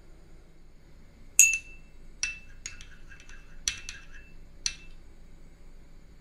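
White ceramic spoon clinking against a small ceramic sauce bowl as soy and chili sauce are stirred and scooped: about seven sharp clinks over three seconds, each with a brief ring, the first the loudest.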